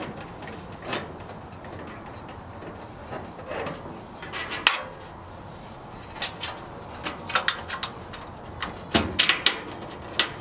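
Scattered light clicks and knocks of metal hardware and sheet-metal parts being handled as the Sidekick attachment is screwed onto the pellet grill. The clicks are sparse at first and come in quick clusters in the second half.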